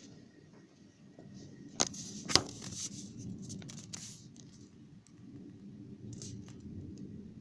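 Scrapes and clicks of a phone being handled at a window screen, loudest about two seconds in, over a low, steady rumble of the storm.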